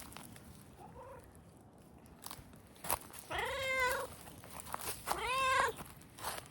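Small calico cat meowing twice, two drawn-out meows about a second apart, after a faint short call.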